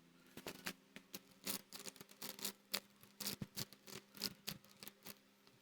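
Faint, irregular clicks and taps, a few each second, over a low steady hum.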